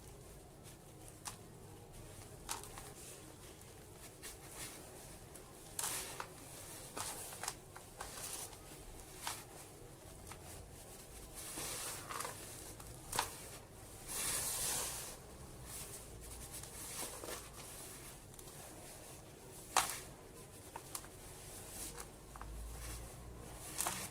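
Soft dirt slabs crumbling: scattered light crackles and clicks with several short, gritty crumbling rustles. The longest crumble comes about halfway through, and a sharp crack a little later is the loudest sound.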